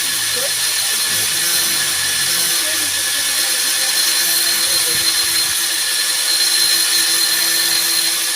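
A power tool running steadily, a continuous high-pitched whine and hiss, during work on a car's exhaust system.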